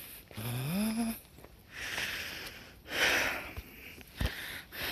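A man's short rising hum close to the microphone near the start, then two loud, rushing breaths.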